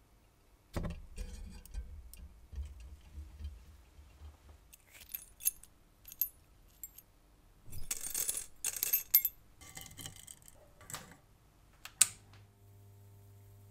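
Small rusty steel parts clinking and rattling against each other and a wire mesh basket as they are handled, a run of light metallic clicks. A sharp click comes near the end, followed by a faint steady hum.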